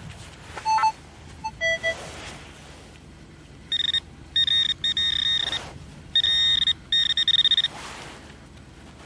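Metal detector beeping while a target is searched for: a few short beeps at different pitches, then, from about four seconds in, repeated bursts of a rapid high-pitched pulsing beep.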